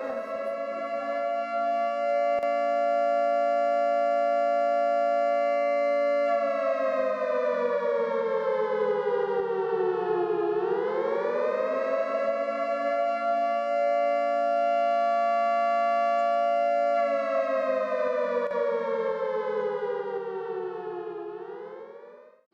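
Air-raid siren wailing with several tones sounding together. It holds one pitch for several seconds, slides down, swings back up and holds again, then falls once more and cuts off near the end. The siren is the air-raid alert.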